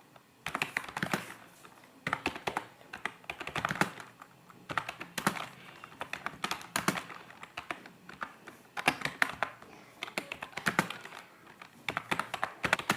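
HP K300 membrane keyboard being typed on quickly, soft key presses clattering in runs of strokes with short pauses between them.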